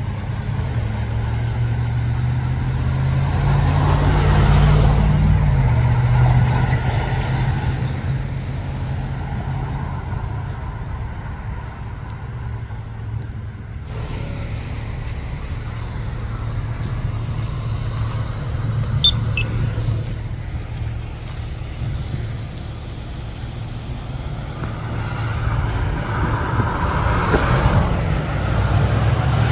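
Road traffic: cars and trucks driving by with a steady low rumble. One vehicle passes close about four seconds in, and another near the end.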